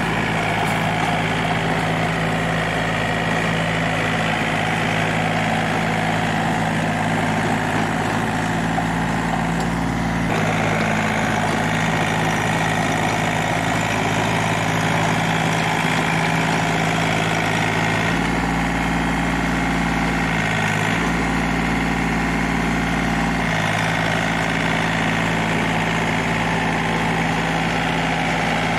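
A 36 hp John Deere compact tractor's diesel engine running steadily under load as it drives a 7-foot rotavator through grassy soil. The engine note shifts a few times along the way.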